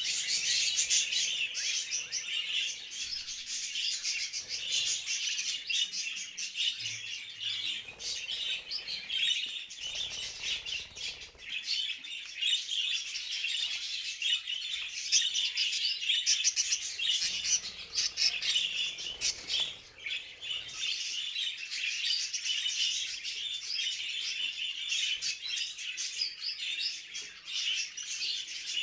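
Many budgerigars chattering and warbling nonstop, a dense overlapping mass of high chirps. This is breeding-season budgie chatter, the kind played to bring budgies into breeding condition.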